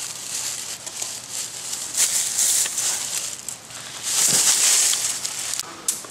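Rustling and crunching of dry leaves and brush, in uneven swells, with a few sharp clicks near the end.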